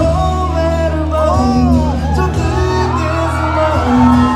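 A song playing, with a singing voice whose melody glides and wavers over long-held low bass notes.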